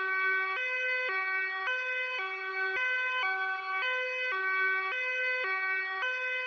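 Luxembourg police two-tone hi-lo siren sounding continuously, its high and low notes alternating evenly, each held about half a second.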